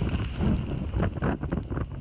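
Hurricane wind gusting hard against a phone's microphone, with heavy rain; the gusts swell about half a second in and again about a second in.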